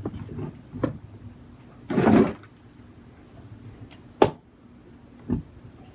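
Handling noises of equipment: a short scrape about two seconds in and a sharp click or clack about four seconds in, with a few softer knocks.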